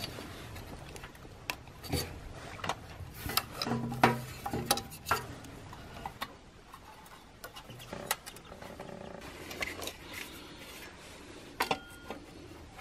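Irregular metallic clicks, clinks and knocks of hand work on metal parts, a few of them sharper, over a low steady background hum.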